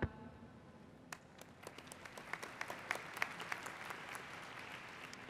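Light, scattered audience applause, starting about a second in, filling out in the middle and thinning toward the end: the crowd's welcome for a guest who has just been introduced.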